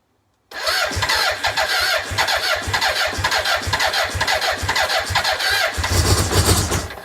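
BMW K100's electric starter cranking its inline-four engine in rapid even pulses for about six seconds without the engine catching: a no-start. The cranking begins about half a second in and cuts off abruptly near the end.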